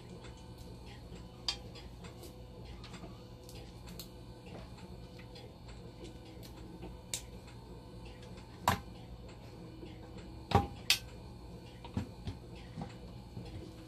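Small clicks and taps of a metal DC motor and pump parts being handled, with three sharper knocks (one past the middle, two close together later) as the motor is fitted into a dialysis machine's blood pump housing. A steady low hum runs underneath.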